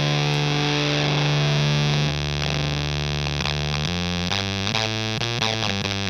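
Electric guitar through a Tonebender MkII clone fuzz pedal: a heavily distorted note held with long sustain. About two seconds in it gives way to choppy, sputtering fuzz notes that jump between pitches, the glitchy 8-bit-style fuzz setting.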